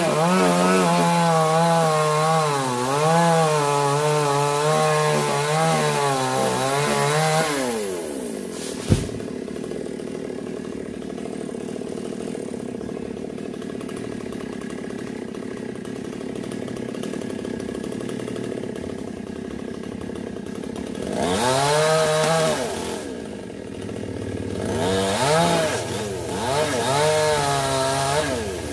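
Chainsaw running at high revs, its pitch wavering as it cuts into a sonokeling (Indian rosewood) limb, then dropping back to idle after about seven seconds. A single sharp knock comes a little later. The saw then idles steadily before being revved up twice near the end.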